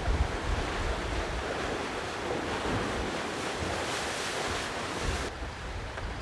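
Rushing sea water and wind around a Volvo Ocean 65 racing yacht sailing at speed, with gusts buffeting the microphone. The hiss turns suddenly duller about five seconds in.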